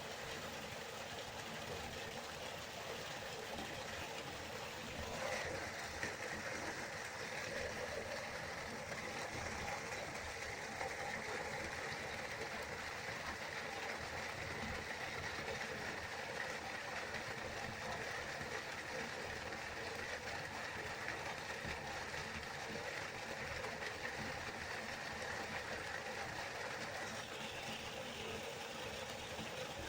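River water flowing, a steady rushing sound. A slightly brighter hiss joins in about five seconds in and fades near the end.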